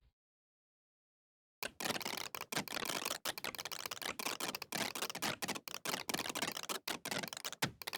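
Bandicam's mouse-click sound effect repeated in a fast, dense run of clicks. The run starts abruptly about a second and a half in, after dead silence, and goes on with only brief gaps.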